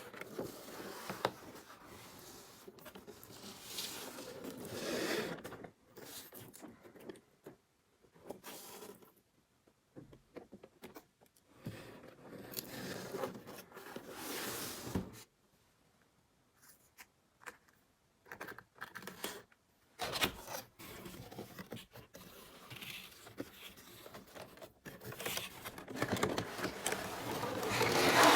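Toy packaging being handled and opened: cardboard and plastic scraping, rustling and tearing in irregular bursts with short pauses, loudest near the end.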